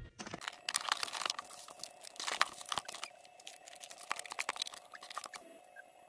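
Packaging being opened and handled: irregular crinkling, tearing and crackling that stops about five seconds in.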